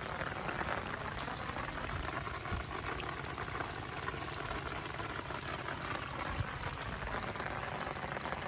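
Heavy rain falling steadily, with scattered drops ticking.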